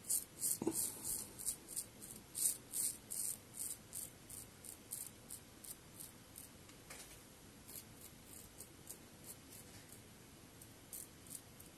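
Fatip slant double-edge safety razor scraping through five-day stubble on the neck: short, crisp, scratchy strokes, about three a second at first, then fewer and fainter.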